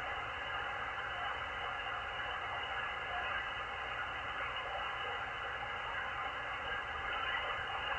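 Shortwave receiver hiss from a Malachite DSP SDR tuned to the 20-metre band: steady band noise squeezed into a narrow audio passband, with a faint steady whistle and no Morse signal keying on and off.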